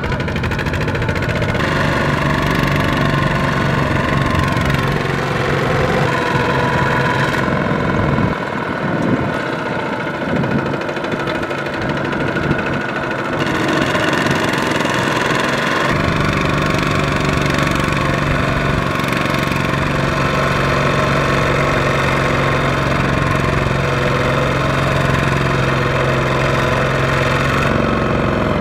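Single-cylinder diesel engines of Kubota two-wheel walk-behind tractors running steadily under load with a knocking chug, hauling loaded rice trailers through deep mud. The engine note shifts a few times, about 8 and 16 seconds in.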